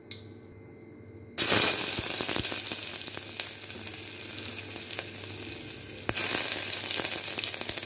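Whole spices (cardamom, cloves, cinnamon) frying in hot ghee and oil with bay leaves, sizzling with a few pops. The sizzle starts suddenly about a second and a half in and swells again near the end.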